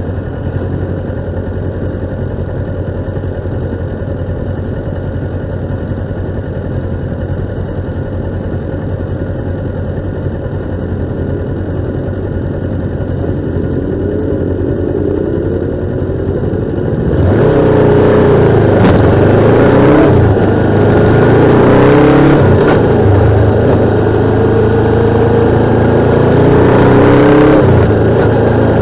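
Motorcycle engine running on a road circuit, holding a steady note for most of the first two-thirds. About two-thirds of the way in it turns suddenly louder and fuller, the engine note rising and falling several times as the throttle is opened and closed.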